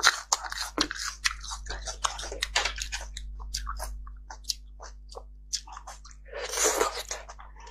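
Close-miked wet mouth sounds of eating roasted beef bone marrow: many short smacks and clicks of chewing, then a longer slurp about two-thirds of the way through as marrow is sucked from the bone.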